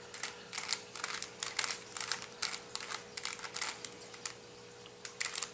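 Plastic clicking and clacking of a 3x3 Rubik's cube's layers being twisted in quick turns, several clicks a second, thinning out after about four seconds.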